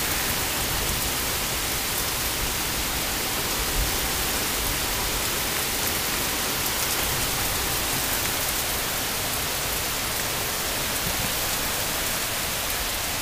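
Rain from a severe thunderstorm pouring down steadily, an even hiss.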